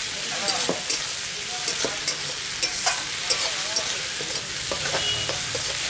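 Onions, tomato and ginger-garlic paste sizzling in hot oil in a metal kadai, with a spatula scraping and knocking against the pan at irregular strokes as it is stirred.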